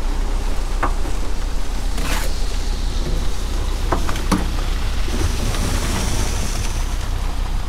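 Ready-mix concrete truck running while wet concrete pours down its chute into a steel crane bucket: a steady wash of sliding slurry over a low rumble, with a few sharp knocks.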